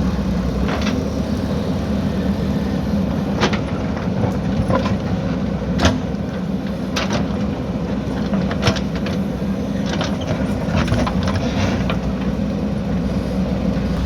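JCB backhoe loader's diesel engine running steadily while digging, with a dozen or so sharp knocks and clanks scattered through it, two of them louder.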